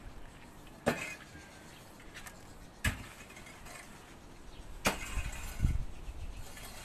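Three sharp knocks about two seconds apart, then a duller thud, from a tool striking inside a concrete tomb niche.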